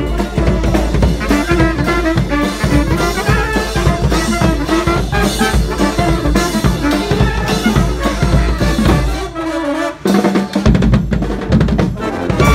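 Street brass band with drums playing a bhangra tune, trumpets and trombones over a driving drum beat. About nine and a half seconds in the music briefly drops, then comes back with loud, accented drum hits.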